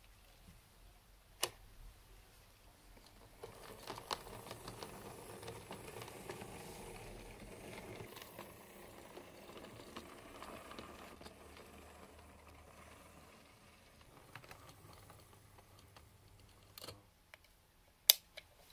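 A model railway 0-4-0 diesel shunter on a Hornby chassis running along the track with a goods van: a faint motor whirr and wheel rattle for several seconds, which fades out. A few sharp clicks come from the track and rolling stock, and the loudest comes near the end.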